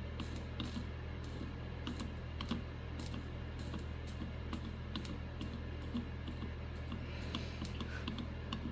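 Faint, irregular small clicks and taps of a soldering iron tip being worked along a row of screen contacts on a circuit board, over a steady low hum.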